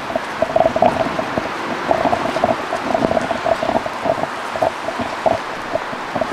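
Steady rain falling, with close water drops plopping irregularly several times a second.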